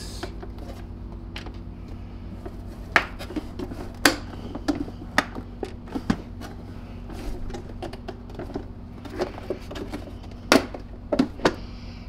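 Irregular sharp clicks and knocks of a vacuum cleaner's plastic housing being handled and worked apart, the loudest about ten and a half seconds in, over a steady low hum.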